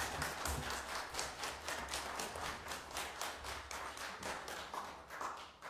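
Hands clapping in applause, a brisk, even run of claps at about six a second that thins out near the end.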